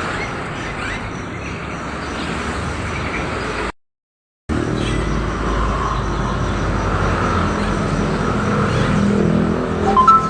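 Steady road-traffic noise from passing vehicles, with faint chirps of caged birds in the early part. The sound drops out completely for under a second about four seconds in, and a short two-pitch tone comes near the end.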